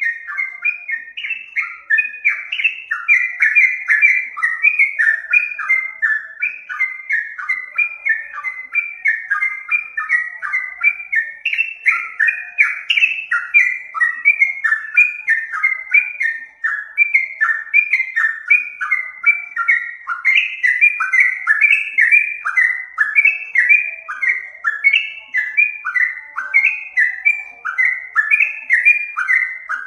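Yellow-vented bulbul (trucukan) calling: a continuous run of short, bubbly chirping notes, several a second, with no pauses.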